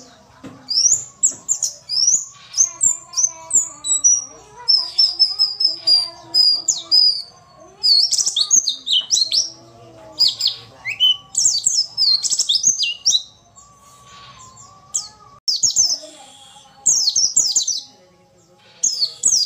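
White-eye (pleci) twittering in rapid bursts of thin, high, sweeping chirps, with a short lull about two-thirds of the way through. This is the female pleci call used as a lure to set male pleci singing.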